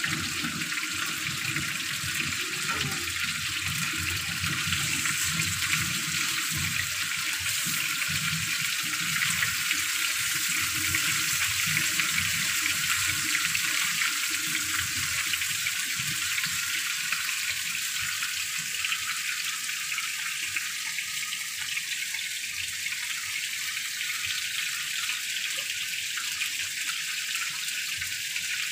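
Chicken pieces pan-frying in a nonstick frying pan: a steady sizzling hiss with irregular crackle.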